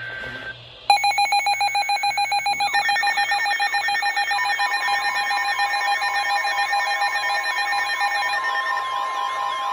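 Emergency alert tones start suddenly about a second in, several electronic tones stacked on top of one another. Steady beeping tones pulse rapidly, a warbling tone joins about three seconds in, and a further steady tone comes in near the middle.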